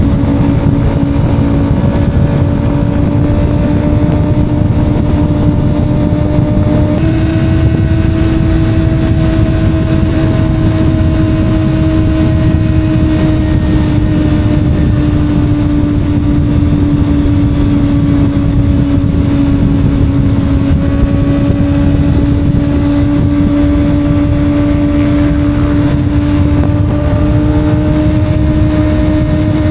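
Kawasaki ZX-25R's inline-four engine running at a steady high-revving drone while riding, over wind and road rumble. The pitch steps up about seven seconds in, then drifts slowly down and back up.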